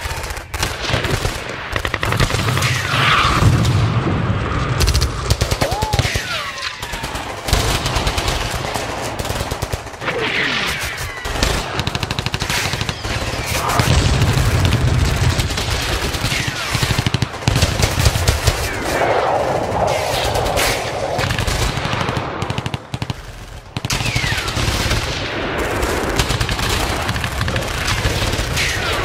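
Airsoft rifles firing in rapid strings of shots, the sharp clicks and cracks coming thick and fast, with a low rumble under them.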